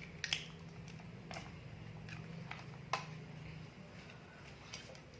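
Faint, scattered clicks and knocks of a crimped network cable and its plastic LAN cable tester being handled, over a low steady hum that stops a little past halfway.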